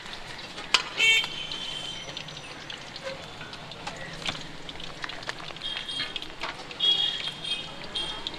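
Steady hiss of oil frying at a street-food stall, with scattered clicks and clinks and brief high-pitched tones about a second in and again near the end.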